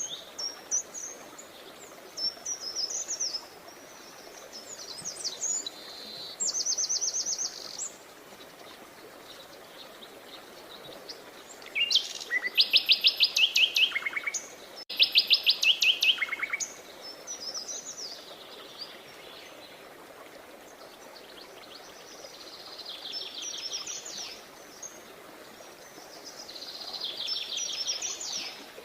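Songbirds singing: short phrases of rapid, high trilled notes separated by pauses. The two loudest trills come in the middle, and fainter ones follow near the end, over a steady background hiss.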